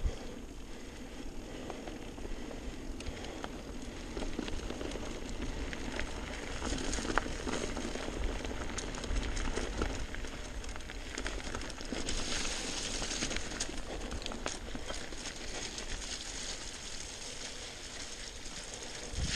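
Mountain bike rolling down a rocky dirt trail: tyres running over dirt and loose stones with frequent clicks and rattles from the bike, and wind rumble on the microphone. The hiss grows louder for a few seconds from about twelve seconds in.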